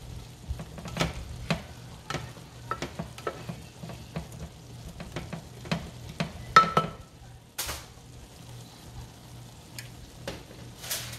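Black spoon scraping and knocking against a glass baking dish as chopped red potatoes are tossed, with irregular clicks and taps throughout and one sharper ringing clink about two-thirds of the way in. A steady low hum lies underneath.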